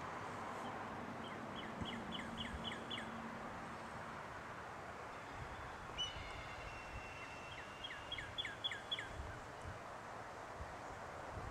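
A bird calling in two quick runs of about six short notes, each note dropping in pitch, a second or so in and again near the end, with a longer whistled note between them. A steady outdoor hiss runs underneath.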